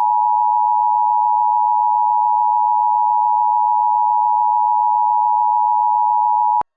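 Emergency Alert System attention signal: a loud, steady two-tone alarm (853 and 960 Hz together) that cuts off abruptly near the end.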